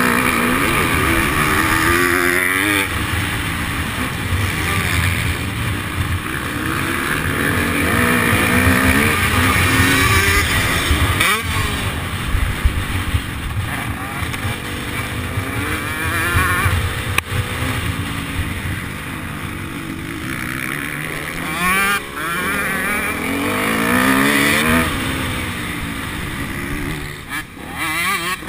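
Motocross dirt bike engine heard onboard, revving up and falling back in pitch several times as it accelerates along the track.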